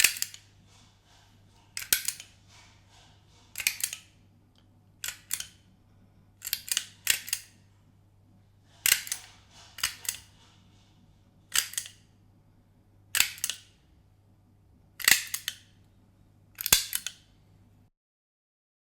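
Office stapler pressed down again and again, each press a quick double snap of the mechanism, about once every one and a half to two seconds, over a faint steady hum.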